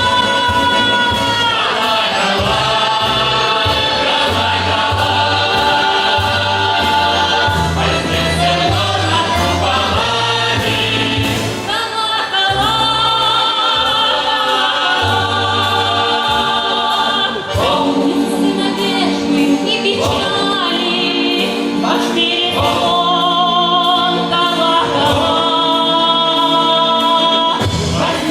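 Russian folk ensemble's choir singing, with instrumental accompaniment: a bass line moving in short notes under the voices and a steady light beat.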